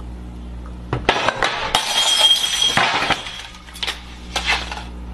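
Glass vase falling and shattering: a couple of sharp knocks, then a dense crash with ringing glass lasting about a second, followed by a few scattered clinks of pieces.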